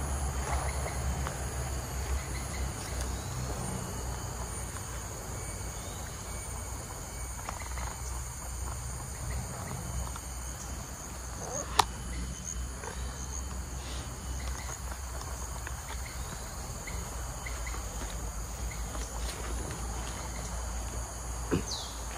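Steady high-pitched chorus of insects buzzing in tropical palm-forest undergrowth, over a low rumble, with a few short chirps. A single sharp click about halfway through.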